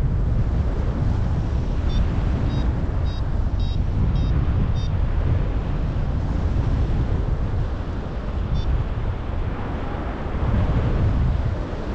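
Strong wind buffeting the microphone in a steady low rumble. About two seconds in come a run of short, high electronic beeps, roughly two a second, and a single beep follows later.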